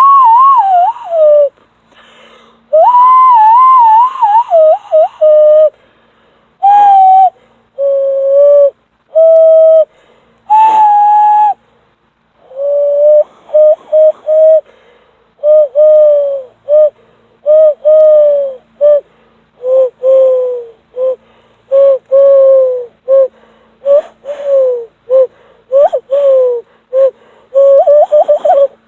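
Hand whistle blown through cupped hands, making bird-like calls. It plays a series of low whistled notes with short gaps between them. Some notes warble, many slide down in pitch at the end, and the notes come quicker and shorter near the end.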